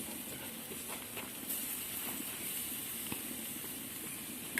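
Steady hiss of a wood campfire, with a few faint crackles.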